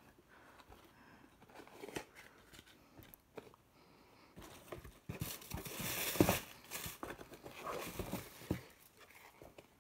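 Packaging rustling and crinkling as a pair of shoes is unpacked by hand, with scattered small clicks; the rustling is loudest in the middle.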